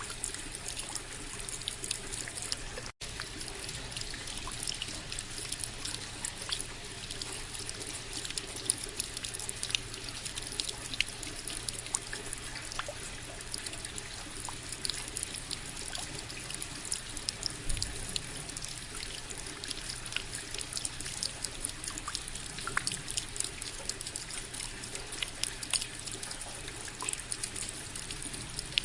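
Steady rain, an even hiss dotted with many small ticks of individual drops. About three seconds in, the sound cuts out for a split second.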